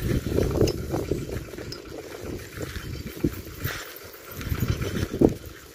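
Uneven low rumble of wind on the microphone, rising and falling, with a few soft thumps of footsteps on a dirt path.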